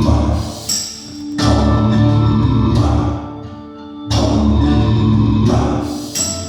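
Instrumental song intro played back over Audio Physic Tempo VI hi-fi loudspeakers: deep bass hits about every two and a half to three seconds, each with sustained pitched tones ringing over it and fading before the next.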